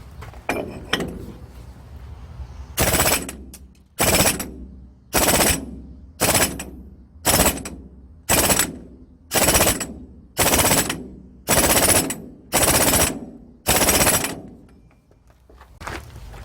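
Pneumatic impact tool hammering in short bursts: about eleven rattling bursts of roughly half a second each, about one a second, with a weaker burst near the start.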